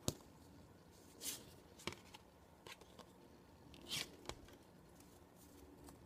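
Postcards in a clear plastic sleeve being handled and shuffled: several brief rustles and crinkles of plastic and card, with faint room tone between them.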